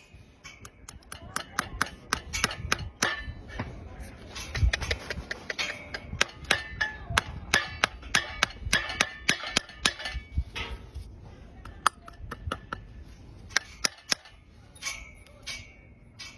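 Farrier's metal tools tapping and clinking in a quick, irregular run of sharp strikes, several a second, each with a short metallic ring. The strikes thin out after about ten seconds.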